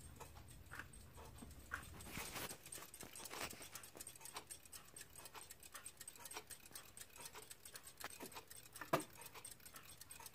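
Several clocks ticking quietly at once, many overlapping ticks, with a louder knock about nine seconds in.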